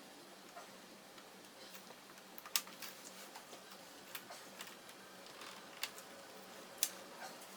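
Scattered light clicks and taps from tools and laptop parts being handled during disassembly, the sharpest about two and a half and seven seconds in, over a faint steady hum.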